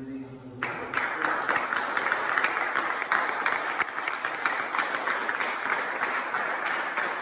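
An audience applauding, many people clapping together, starting abruptly about half a second in.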